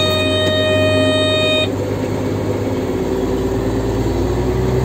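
An in-cab electronic warning beeper sounds one steady tone and cuts off a little under two seconds in. Under it the tractor engine drones on steadily, its low note shifting about three seconds in.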